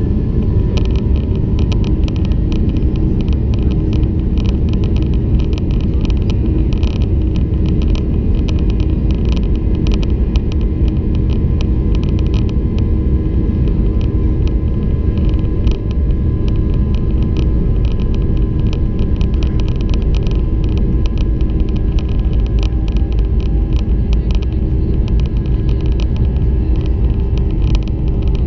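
Boeing 737-800's CFM56-7B jet engines running steadily at low power while the airliner taxis, heard inside the cabin: a steady low rumble under a steady whine, with frequent light rattles.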